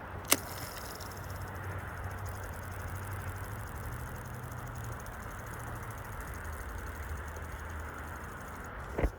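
Steady rushing of river water, with a low hum underneath, a sharp click about a third of a second in and another click near the end.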